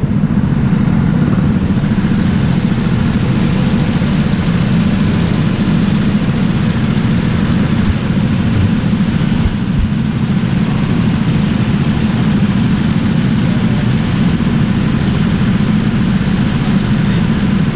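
Go-kart engine running steadily, heard from on board the kart.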